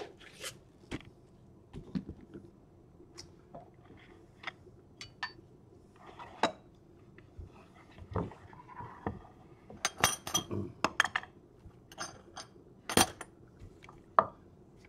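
Metal kitchen tools clinking and knocking on a wooden cutting board as a chef's knife and a metal garlic press are picked up, set down and pushed through diced onion. Scattered sharp clicks, with a busy cluster of clatter about ten seconds in and a sharp knock about thirteen seconds in.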